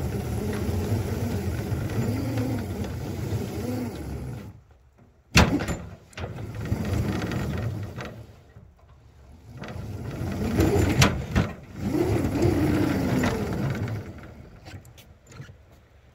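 Miniature ride-on locomotive's drive running as it pushes a snowplow through heavy, wet snow, its pitch wavering up and down. It cuts out about four seconds in, then starts and stops twice more with a few sharp clunks, the way an intermittent radio-control connection makes it do, and dies away near the end.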